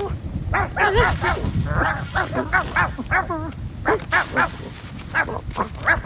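Cartoon dog barking and yapping in a rapid string of short, high calls, some with a wavering pitch.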